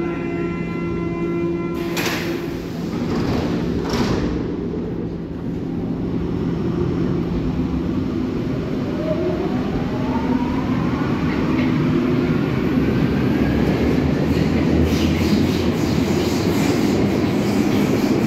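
Berlin U-Bahn train departing: a steady warning tone for about two seconds, the sliding doors knocking shut about two and four seconds in, then the traction motors whining up in pitch as it pulls away, with wheel and rail noise growing louder as the cars run past.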